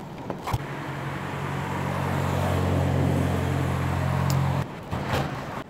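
Motor vehicle engine running with road traffic noise: a steady low hum that swells toward the middle and cuts off suddenly about four and a half seconds in.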